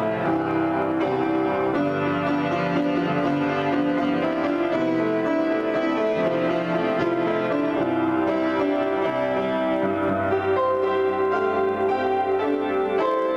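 Solo piano improvisation, played with both hands: many notes sounding together, changing every second or so, at an even level.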